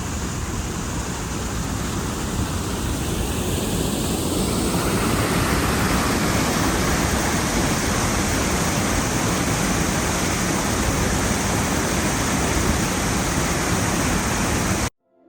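Water rushing steadily at a canal lock, growing louder about four seconds in and cutting off suddenly near the end.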